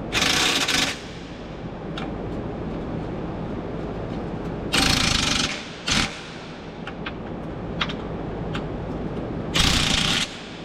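Impact wrench run in three short bursts about five seconds apart, running down the nuts that hold a front chassis brace, with small clicks and a steady background hum between.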